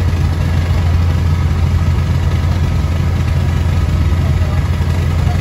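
A tour boat's engine running steadily, heard on board while the boat is under way: an even, low hum.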